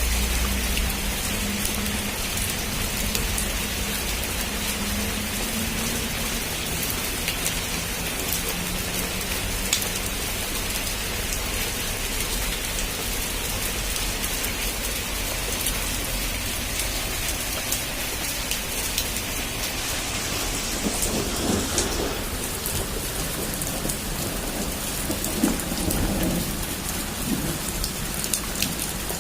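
Heavy rain falling steadily, a dense even hiss, with thunder rumbling twice near the end.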